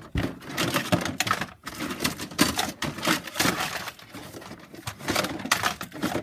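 Plastic Hot Wheels playset pieces clattering and a cardboard box rustling as the parts are tipped and pulled out of the box, in irregular bursts of knocks and scrapes.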